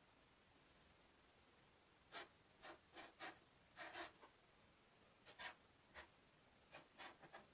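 Chisel-tip marker stroking across paper as letters are written: a string of about a dozen short scratching strokes, starting about two seconds in.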